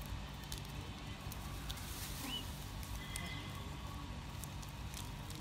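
Outdoor ambience: a low steady rumble with scattered light clicks and taps, and a single short high chirp a little past two seconds in.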